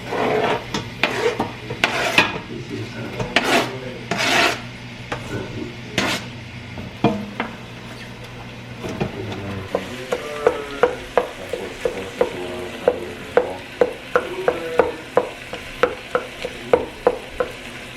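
A pot of chili with tomatoes being stirred on the stove, over a light sizzle. Irregular clatters come first; from about halfway through, the spoon knocks against the pot steadily, about two to three times a second.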